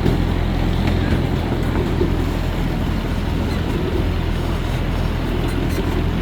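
Miniature park train running steadily, heard from the front car: an even low engine hum and rumble of the moving train.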